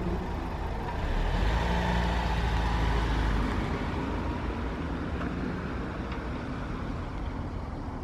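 Volkswagen Jetta sedan pulling away and driving off. The engine and tyre noise swells about a second in, then slowly fades as the car moves away.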